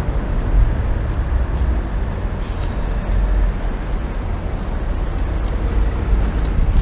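A steady, low outdoor rumble with no distinct events.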